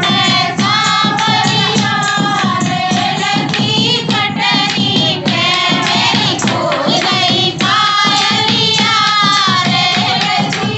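Women singing a Haryanvi folk dance song together, with a steady beat underneath.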